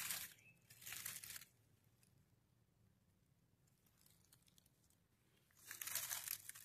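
Dry leaf litter and grass stems rustling as a hand pushes them aside around a morel mushroom, in short bursts during about the first second and a half and again near the end, with quiet between.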